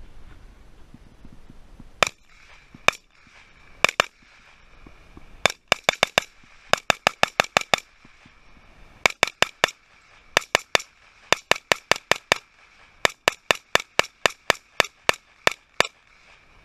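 AR-15 rifle in .223 fired semi-automatically in a mag dump. A few spaced single shots come first, then fast strings of about five or six shots a second, roughly forty in all, stopping shortly before the end.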